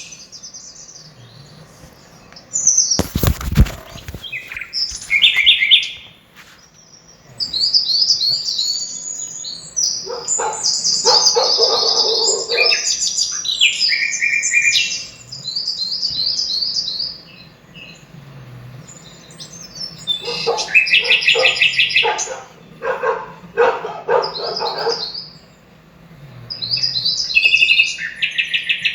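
Songbirds singing in a string of quick chirped and trilled phrases, some phrases dipping lower. A single sudden loud thump about three seconds in.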